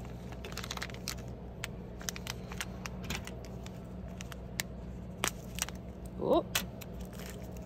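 Scattered clicks and crinkles of a plastic packet of coloured sand being handled as sand goes into a funnel, over a steady low hum, with one short rising vocal sound about six seconds in.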